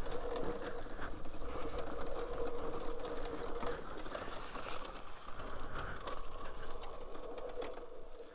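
Talaria Sting R MX4 electric dirt bike riding over rough ground: a steady motor whine with ticks and clatter from the bike and trail.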